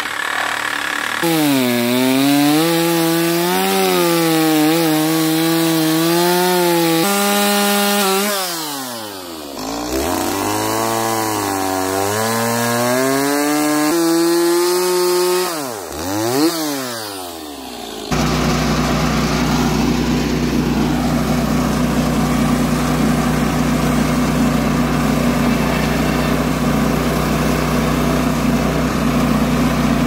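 A chainsaw trimming branch stubs off a spruce log, its engine pitch rising and falling with the throttle and dropping away twice before picking up again. About eighteen seconds in it gives way to the Kohler engine of a Woodland Mills HM130MAX sawmill running steadily.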